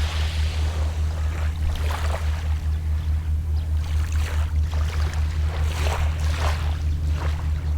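Small sea waves lapping and washing up on the shore every second or two, over a steady low drone with an even pulse, the engine of a distant boat.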